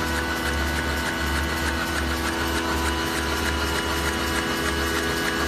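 Non-woven facial tissue V-folding machine running: a steady mechanical drone with several held tones over it and a light, fast, regular ticking.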